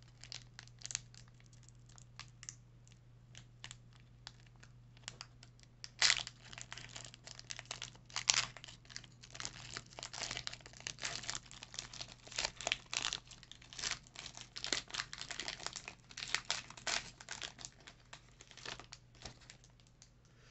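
Foil wrapper of a Pokémon trading card booster pack crinkling and tearing as it is pulled open by hand: irregular crackles, with sharp rips about six and eight seconds in and dense crinkling after that. A faint steady low hum sits underneath.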